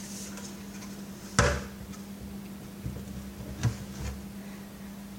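Handling knocks over a steady low hum: one sharp knock about a second and a half in, then a few dull thumps and a lighter knock a couple of seconds later.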